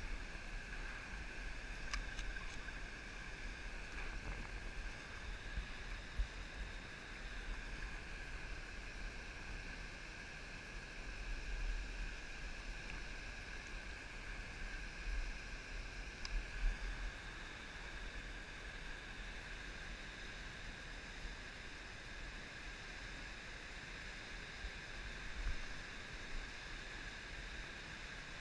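Small waves lapping and gurgling against a drifting kayak's hull, with a low rumble of wind on the microphone and a few faint knocks.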